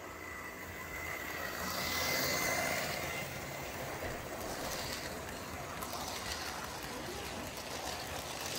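Model Class 59 diesel locomotive running past on sectional track, its electric motor whining, loudest about two seconds in as it goes by. A long string of model freight wagons follows, rolling and clicking over the rail joints.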